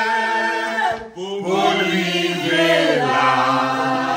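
Voices singing slow, long held notes in a chant-like, choral style, with a brief break about a second in before the singing resumes.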